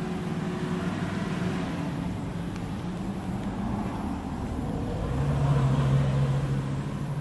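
A motor engine running steadily with a low hum, growing louder and steadier about five seconds in.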